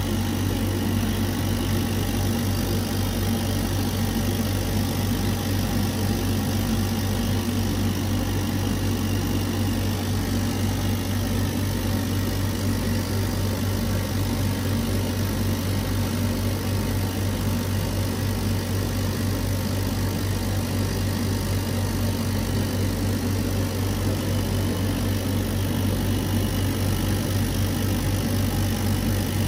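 Dual-head laser cutter running as it contour-cuts a print mounted on MDF: a steady machine whir and hiss over a constant low hum, unchanging throughout.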